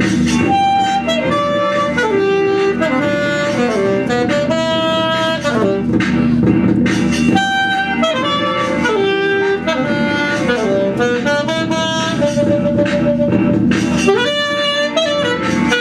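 Saxophone playing a melody that steps down and back up, the phrase repeating about halfway through, over a steady low backing.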